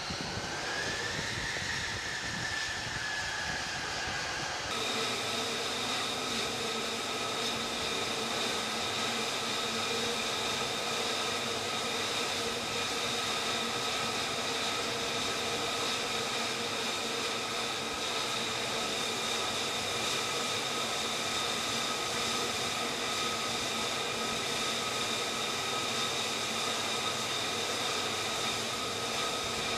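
F-35C's jet engine running steadily at idle, a constant whine made of several steady tones over a rushing noise. The sound changes abruptly about five seconds in; before that, a whine briefly rises and falls.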